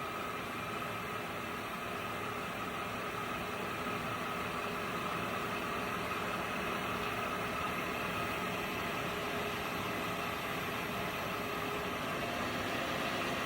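Acer EVS-3VS vertical milling machine's spindle running steadily in high gear at about 2000 RPM, with the power quill feed engaged: a steady machine hum with faint whining tones.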